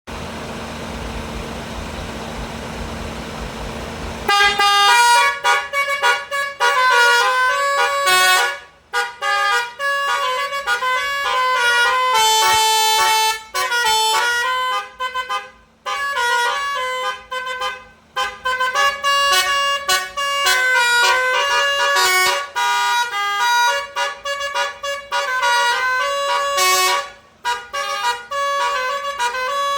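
Bus 'telolet' multi-tone musical horn playing a quick melody of changing notes, with a few short breaks. It starts about four seconds in, after a steady noise.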